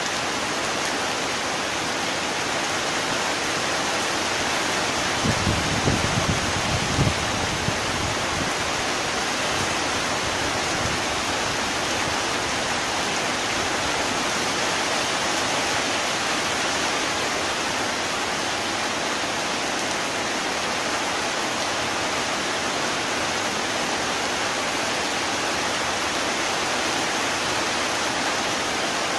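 Heavy rain falling steadily, an even hiss. A few short low thumps come about five to eight seconds in.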